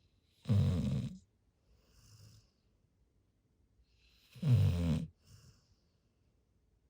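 Golden retriever snoring in its sleep: two loud snores about four seconds apart, each lasting about a second, with a faint breath in between.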